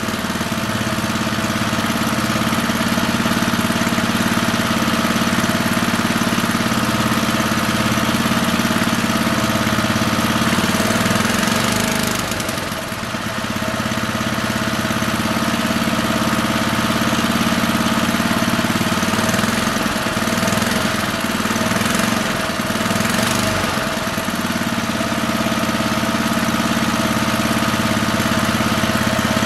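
1968 Briggs & Stratton 2 hp single-cylinder flathead (L-head) engine running steadily on its own after a full rebuild, with a brief drop in speed about halfway through before it picks back up.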